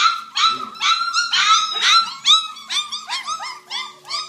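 A litter of young puppies squealing and yelping in quick, high-pitched cries, several voices overlapping, a few cries a second.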